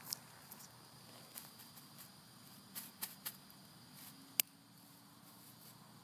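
Faint, steady, high-pitched insect drone, with a few scattered light clicks; the sharpest click comes about four and a half seconds in.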